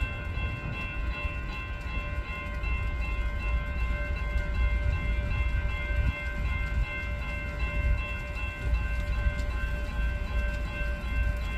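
Slow-moving freight train: a steady low rumble with a continuous high-pitched squeal of several steady tones from the rolling cars.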